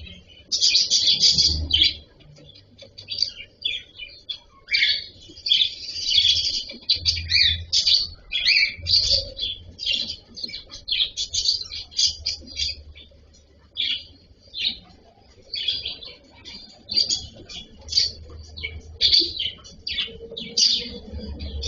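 Cockatiel chirping: a near-continuous string of short, high chirps and calls with a few brief pauses.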